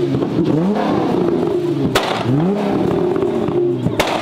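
A car engine revving hard over and over, its pitch climbing, holding briefly, then dropping several times in a row. Two sharp cracks come about halfway through and again near the end.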